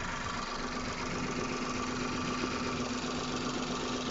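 Hyundai Eon's three-cylinder petrol engine idling steadily, heard close up in the engine bay, with an even tone running through it. The engine has 82,000 km on it and has just been serviced with fresh fully synthetic oil and a new air filter.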